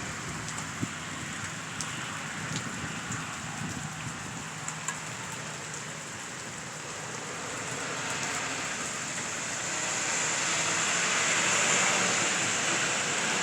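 Steady rain falling, with scattered drops ticking close by. About eight seconds in, a hiss of tyres on the wet road swells up and grows louder toward the end.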